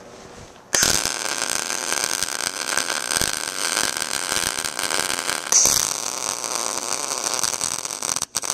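Wire-feed welder's arc crackling steadily while welding steel angle iron and square tubing. It strikes up sharply about a second in and breaks off briefly near the end before starting again.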